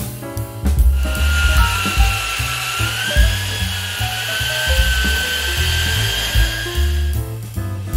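Background music with a steady bass beat. From about a second in until near the end, a high whine with a slowly wavering pitch sounds over it.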